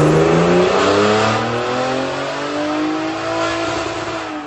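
Ford Raptor's 3.5-litre twin-turbo EcoBoost V6, fitted with a big-turbo kit, revving hard under load on a chassis dyno. The revs climb, drop with a gear change about a second in, then climb steadily again.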